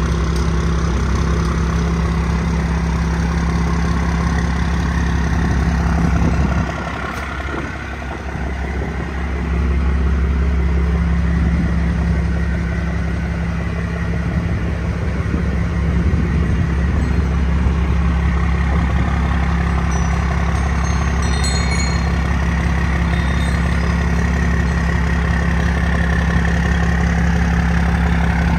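1991 Dodge D350's straight-piped Cummins turbodiesel idling steadily. It dips in level for a few seconds about a quarter of the way through, then comes back.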